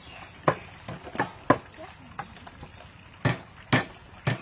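Raw pork intestines being squeezed and rubbed by hand in a stainless-steel bowl of water: irregular wet squelches and slaps, a few of them sharper and louder than the rest.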